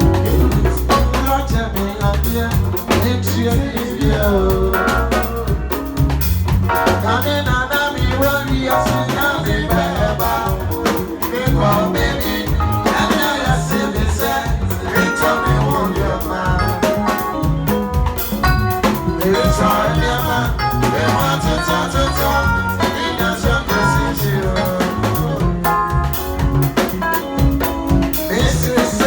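Loud music with a heavy bass line and a steady beat, played over a sound system during a sound check.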